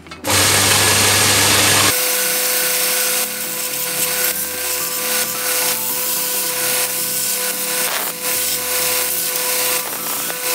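A power tool cutting steadily. The first couple of seconds are louder and harsher, then it settles to an even, slightly quieter cut with a held whine.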